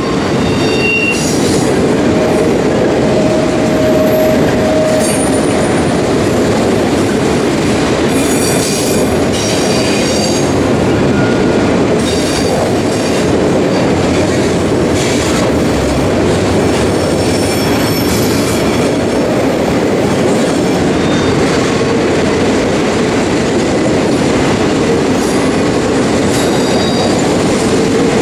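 Autorack freight cars rolling past close by: a steady, loud rumble of steel wheels on rail, with brief wheel squeals coming and going.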